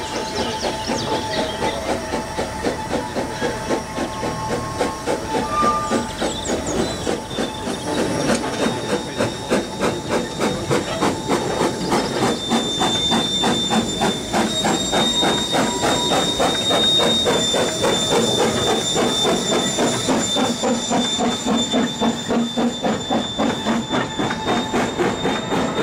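Narrow-gauge steam locomotive hauling goods wagons past, with hissing steam and a rapid, even beat of chuffing and wheels clicking over the rails. A high steady squeal joins in about halfway through as the wheels take the curve.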